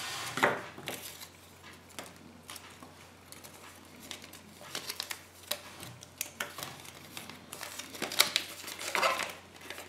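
Yellow plastic Kinder Surprise capsule pulled open with a sharp snap about half a second in, then small plastic toy parts and their paper wrapping handled and crinkled, with scattered light clicks and rustles.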